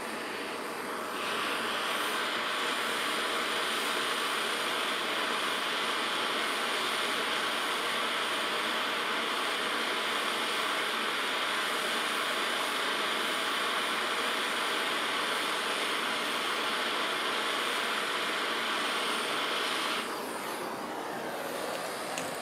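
Handheld propane torch burning with a steady hiss as its flame plays on a steel plate; it gets a little louder about a second in and stops near the end.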